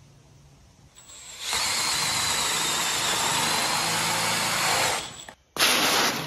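Cordless drill with a hole saw spinning up and cutting through a sheet of ABS plastic, running steadily for about three and a half seconds with a faint whine, then stopping. A second short loud burst follows near the end.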